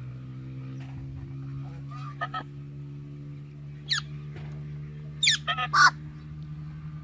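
Short, harsh parrot calls: two brief calls about two seconds in, one about four seconds in, and a loud group of three near the end. A steady low hum runs underneath.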